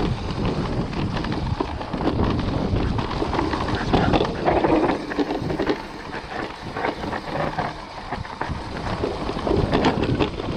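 Orbea Wild FS electric mountain bike descending a rough dirt trail, recorded on an action camera: tyres rolling over dirt and stones, with frequent knocks and rattles from the bike over bumps and wind on the microphone.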